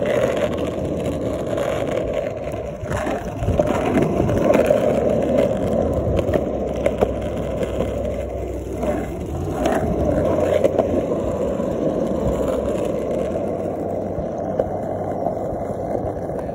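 Longboard wheels rolling on asphalt: a steady rumble with scattered small clicks as the wheels pass over the rough surface.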